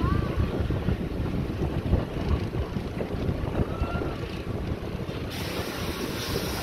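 Strong wind buffeting the microphone, a gusty low rumble, with the sea moving below. A couple of faint short chirps rise and fall, once at the start and once about four seconds in.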